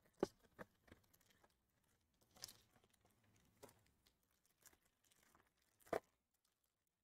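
Faint handling of a foil trading-card pack: the foil wrapper tearing open and crinkling, with a few sharp taps and clicks as the cards are handled, the loudest near the start and about six seconds in.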